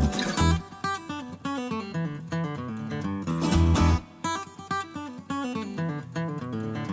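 Background music: an upbeat acoustic guitar tune with a steady beat.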